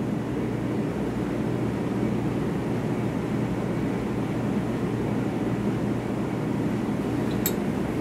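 Steady low mechanical hum of lab background noise, like an air-handling or equipment drone, holding level throughout, with a faint click near the end.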